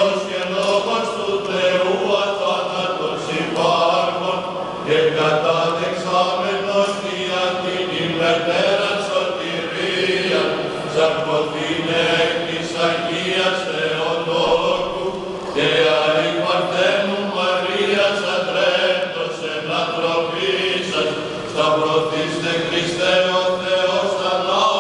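Orthodox Byzantine chant sung by a group of cantors: a melody moving over a steady low held note, the ison drone, in continuous phrases, with a new phrase beginning about two-thirds of the way in.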